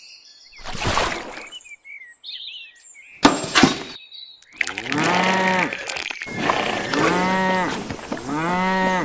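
A short noise burst, then a sharp crack about three seconds in, followed by three long, low animal calls, each rising and falling in pitch.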